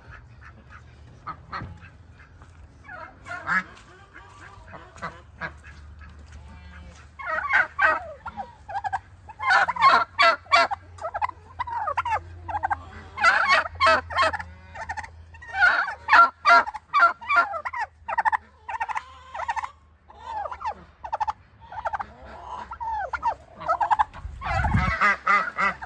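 Domestic turkey toms gobbling, one rapid rattling gobble after another, with a low thump near the end.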